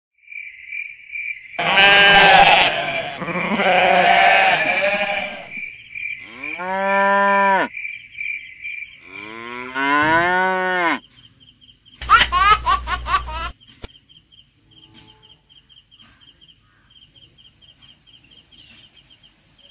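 Cows mooing, as dubbed-in sound effects: a burst of overlapping moos in the first few seconds, then two single long moos that rise and fall in pitch, and a shorter quavering call about twelve seconds in. Faint high, evenly pulsing chirps run underneath throughout and are all that is left after the calls stop.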